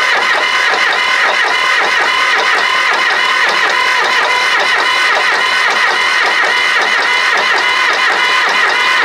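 Starter motor cranking a supercharged Cummins diesel tractor engine, with a steady whine over a quick, even pulse of the engine turning over. The engine is being cranked to draw fuel through a newly fitted injection pump whose lines are still full of air.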